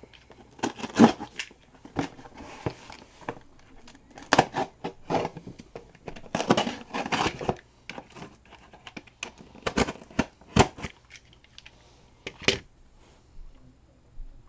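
Cardboard shipping box being cut and torn open by hand: irregular scratches, rips, crinkles and sharp knocks in bursts, with a pause of about a second between them.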